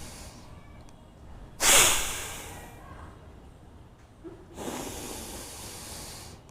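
A person doing bhastrika breathing through the nose: one sudden, forceful exhale about a second and a half in that fades over a second, then a long, steady inhale through the nose near the end.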